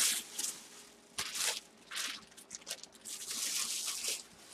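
Plastic packaging rustling and crinkling as it is handled, in several short bursts and one longer stretch about three seconds in.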